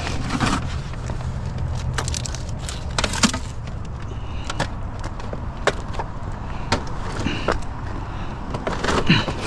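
Scattered knocks, clicks and scrapes of a plastic printer and power cords being handled and pulled about in a junk pile, over a steady low rumble.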